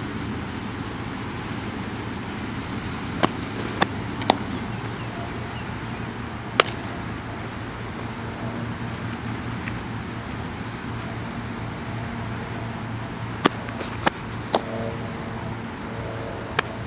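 Sharp leather pops of a softball smacking into gloves during catcher drills: eight short smacks in all, three in quick succession a few seconds in and three more in quick succession later on. Steady road traffic and wind noise run underneath.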